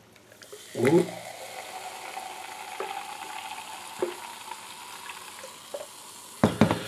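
Cola pouring from a one-litre aluminium can into a glass, the carbonation fizzing in a steady hiss as the glass fills with foam. A sharp knock near the end.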